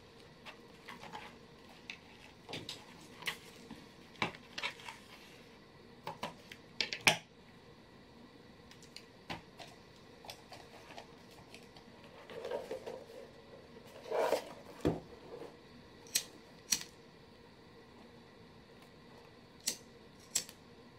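Leather being hand-stitched with needle and thread: irregular light clicks and taps of the needle and handling of the leather, with a couple of longer rubbing sounds of thread drawn through the stitch holes about twelve to fifteen seconds in.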